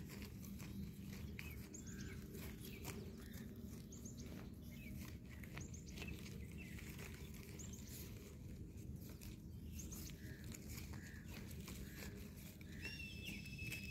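Faint open-field ambience: short high bird chirps every second or two over a low steady rumble, with scattered soft clicks. A thin steady whistle begins near the end.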